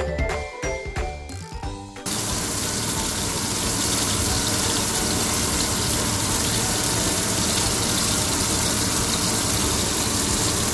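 Background music for about two seconds, then a sudden switch to the loud, steady rush of a kitchen exhaust fan running over beef patties frying in oil in the pan.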